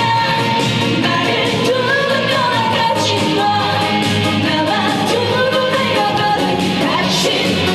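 Korean trot song performed live: a female singer's voice carrying a held, wavering melody over loud backing music with a steady beat.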